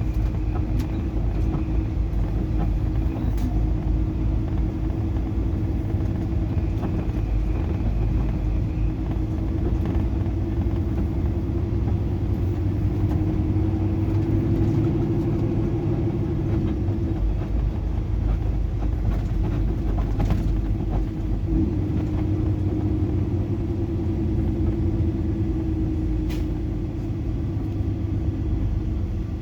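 Semi-truck driving on the road, heard from inside the cab: a steady low engine and road rumble with an even drone.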